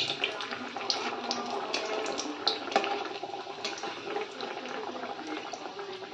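Breaded bhetki (barramundi) fillet deep-frying in oil in an aluminium kadai on a medium-low flame: a steady sizzle with scattered crackles and pops.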